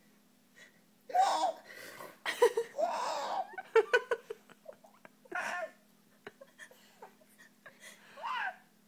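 A baby's sucked-in, gasping vocal noises mixed with laughter, in several short bursts with pauses between them.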